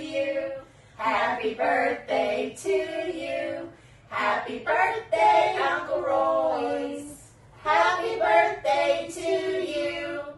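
Three women singing a song together, with short breaks between phrases.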